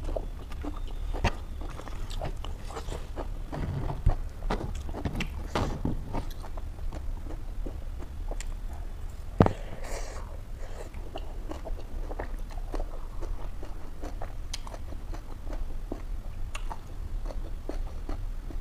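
Close-up sound of a person chewing mouthfuls of leafy greens and bits of smoked pork eaten by hand, with many small wet mouth clicks. A few sharper clicks stand out about four and nine seconds in.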